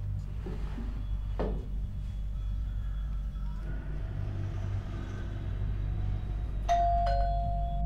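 Electronic doorbell chime sounding near the end: a two-note ding-dong, high then lower, each note ringing on, over a steady low hum.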